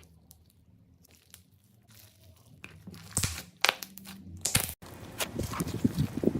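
Slime mixed with snow being squeezed and worked by hand: irregular crunching and crackling, faint at first, then louder from about three seconds in and denser near the end.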